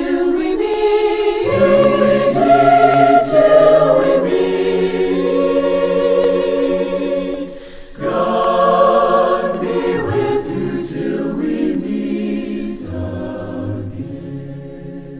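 Choir singing slow, held chords in two phrases, with a short break about eight seconds in, fading away near the end.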